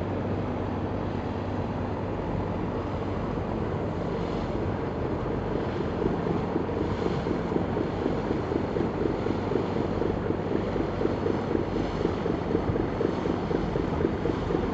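Diesel engine of a loaded cargo barge running at a steady chug as it passes close by, the regular pulsing of its exhaust growing louder about halfway through.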